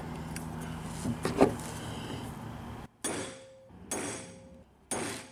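Steel marking punch striking into a steel square-tube block through a marking jig: three sharp metallic strikes about a second apart, each followed by a short ringing of the steel.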